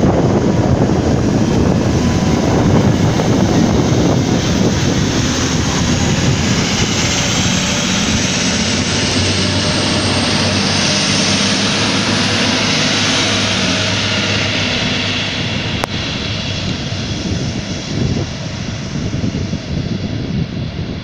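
Diesel engines of a DB Class 612 tilting diesel multiple unit running under power as it pulls away, with a high whine rising in pitch through the middle. The sound fades over the last few seconds as the train draws off.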